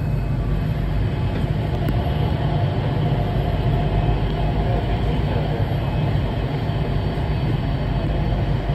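Changi Airport Skytrain, a rubber-tyred automated people mover, running at speed along its guideway, heard from inside the cabin as a steady low rumble.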